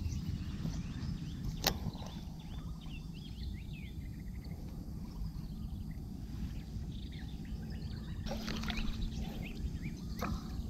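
Baitcasting reel being wound by hand, then cast, with the spool whirring briefly about eight seconds in, over a steady low outdoor rumble.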